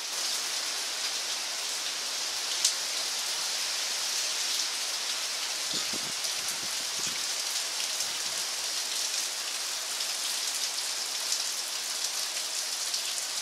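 Steady heavy hurricane rain pattering on a yard, shrubs and a roof, with one sharp tick a little under three seconds in.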